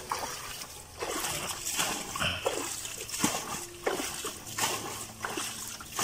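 Shallow muddy water splashing and sloshing as it is scooped with a woven basket and net, in irregular strokes about one or two a second.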